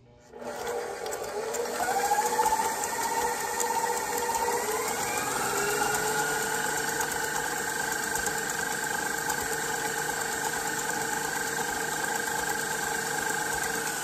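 Electric stand mixer running, its wire whisk beating cookie dough in a stainless steel bowl: a steady motor whine that starts about half a second in and climbs as it spins up, changes pitch around five seconds in, then stops at the end.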